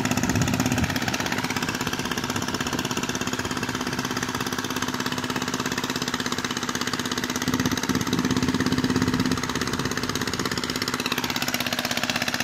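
Engine of a mud boat tiller running steadily as it works a flooded rice paddy, with a rapid even firing beat. It runs a little louder for a couple of seconds past the middle.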